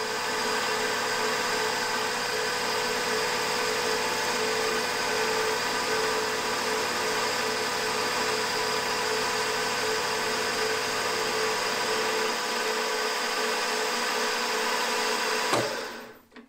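Milling machine running steadily with a small end mill cutting aluminium around the small end of a model engine connecting rod, at an even, unchanging pitch. It stops abruptly near the end.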